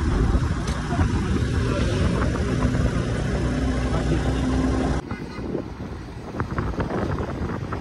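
Riding on a motorbike: low wind rumble on the microphone mixed with engine and road noise, with a steady engine hum. About five seconds in it cuts abruptly to quieter roadside traffic noise.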